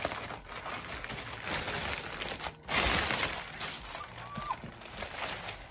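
Packaging paper rustling and crinkling in uneven bursts as a new bag is unwrapped by hand.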